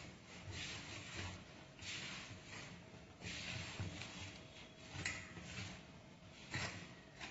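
A hand rubbing and pressing maida flour against a steel bowl while water is worked in little by little for pizza dough. It makes soft, irregular rustling scrapes about once or twice a second.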